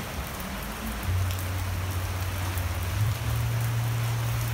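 Steady rain falling on wet pavement, an even hiss. A low steady hum comes in about a second in and steps up slightly in pitch about three seconds in.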